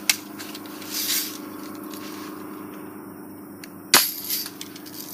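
Red Ryder lever-action BB gun: a sharp snap just after the start and a louder one about four seconds in, over a steady low hum.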